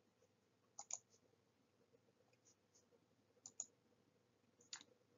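Near silence with faint computer mouse clicks: a quick pair about a second in, another pair about three and a half seconds in, and a single click near the end.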